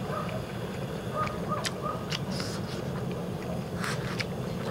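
Steady rumble of a Kovea Camp 1 gas burner's flame under a pot of ramen, with a few sharp metallic clicks as chopsticks and the pot lid are handled about two and four seconds in.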